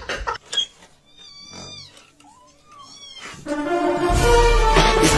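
A cat meowing, three short rising-and-falling meows. Then loud music with a heavy bass comes in about three and a half seconds in.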